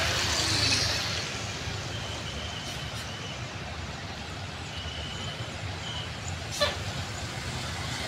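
A large tour coach's engine running low and steady as the coach creeps forward, with the hiss of passing traffic fading in the first second. A few faint short high tones sound in the middle, and there is one short sharp click about six and a half seconds in.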